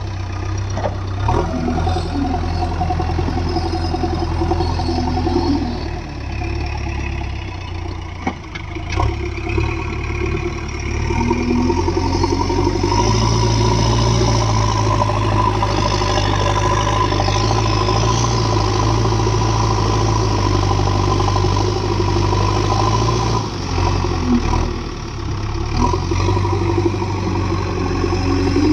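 JCB 3DX backhoe loader's diesel engine running, revving up and holding at higher revs for about ten seconds midway before dropping back. A few sharp metallic clanks come through.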